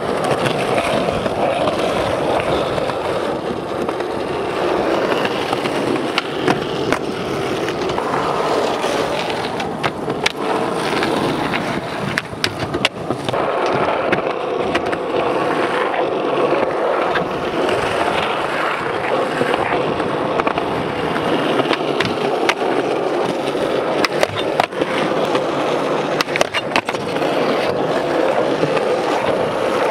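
Skateboard wheels rolling over rough, worn concrete: a steady rolling rumble broken by a few sharp clacks of the board popping and landing, a cluster around the middle and more later on.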